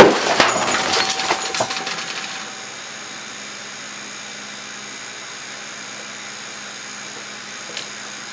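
A glass liqueur bottle pressurized with compressed air to about 100 psi bursts with one loud bang as a .177 air-rifle pellet hits it. Broken glass then clatters and tinkles for about two and a half seconds, dying away into a steady hiss.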